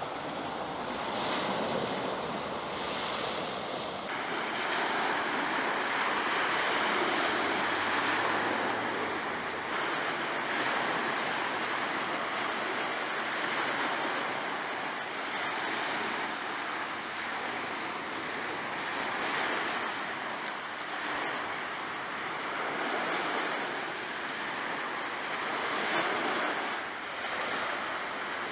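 Sea waves washing, mixed with wind buffeting the microphone: a steady rushing that gets louder about four seconds in.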